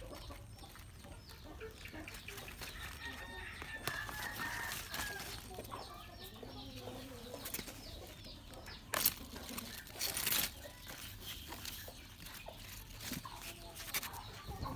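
Chickens clucking, with many short calls through the first few seconds. Two brief rustling, tearing noises about nine and ten seconds in come from white radishes being pulled by hand out of the soil.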